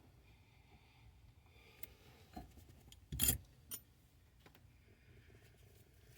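Hand-tool work on a van's engine: quiet metal handling, then one loud, short metallic crack about three seconds in, likely a bolt breaking loose under a wrench, with a smaller knock just before and a click just after.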